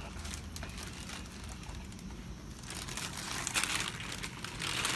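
Black plastic garbage bag crinkling and rustling in gloved hands as slime is tipped into it from a plastic box. The crinkling is faint at first and grows louder over the second half.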